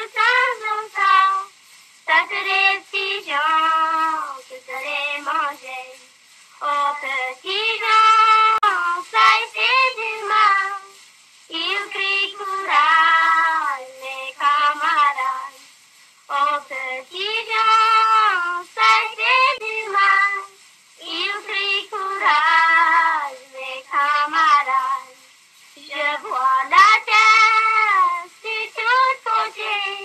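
A high voice singing alone, without accompaniment, in phrases of one to two seconds with short breaks between them.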